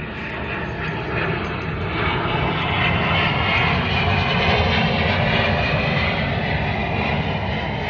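A loud, steady rushing roar that swells toward the middle and eases slightly near the end.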